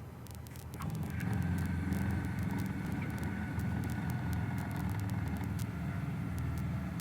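Cessna 172's engine running at low power, its drone getting louder about a second in and then holding steady.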